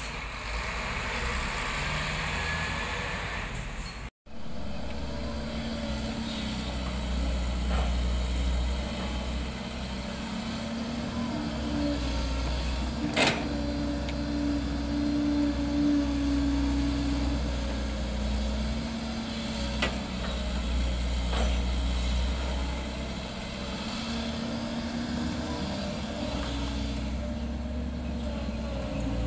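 Excavator's diesel engine running steadily at work, a low rumble with a pitched hum that rises and falls, and one sharp knock about 13 seconds in. The sound cuts out for a moment about four seconds in.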